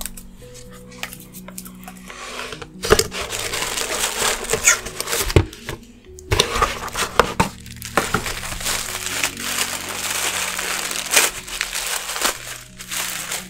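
Cardboard box being handled and its lid lifted off, with several sharp knocks and clicks, then tissue paper rustling and crinkling as the wrapped contents are handled. Soft background music with slow, held notes plays underneath.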